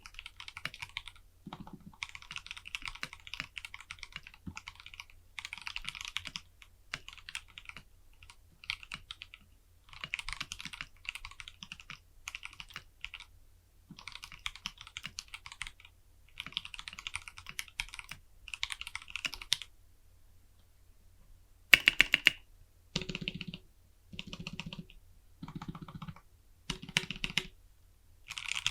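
Typing on an Anne Pro 2 60% mechanical keyboard: runs of fast key clacks in bursts of a second or two. After a short pause about two-thirds of the way in come a few separate, louder strokes with a deeper clack, and then fast typing resumes near the end.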